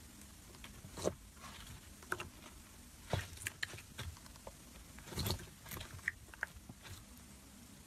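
Fingers pressing and kneading glossy orange slime, making irregular small sticky pops and squishes, the loudest about a second in and just after five seconds.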